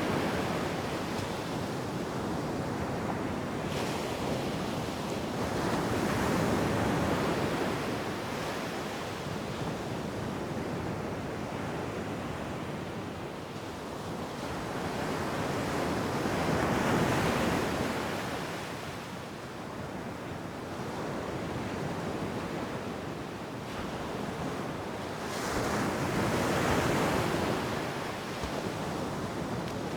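Ocean surf on a beach: a continuous rush of breaking water, with three larger waves swelling and washing in roughly ten seconds apart.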